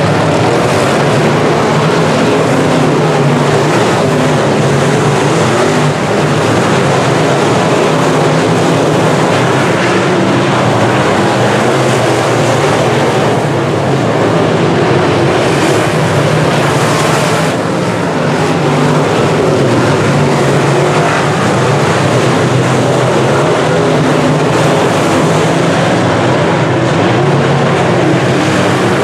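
Pack of semi-late model dirt race cars racing around the oval, their engines loud and running steadily at full throttle.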